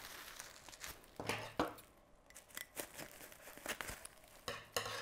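Plastic bubble wrap crinkling and tearing as it is pulled off a mug, in scattered short crackles and rustles.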